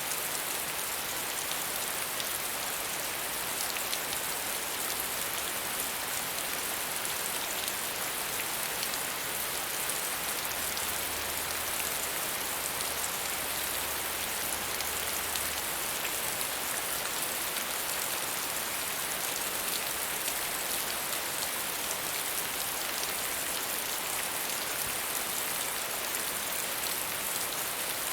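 Steady, medium rainfall: an even hiss with many small drops pattering on surfaces.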